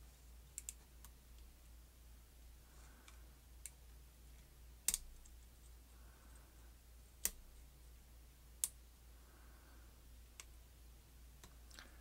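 Faint, sparse metallic clicks of a lock pick and tension wrench working the pin tumblers of a Bell Ballistic 610 keyed cable lock, about eight clicks at irregular intervals, the loudest about five seconds in.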